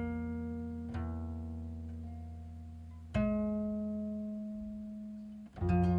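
Slow background music of plucked guitar: a note or chord struck every two seconds or so and left to ring out and fade.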